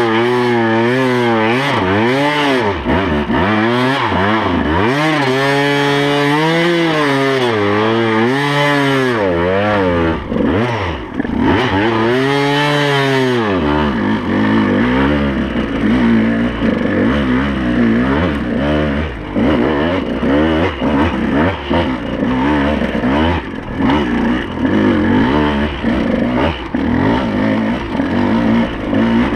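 KTM 200 XC-W single-cylinder two-stroke enduro engine under way, revving up and down over and over as the throttle is worked on rough trail. About halfway through it settles into higher, steadier revs.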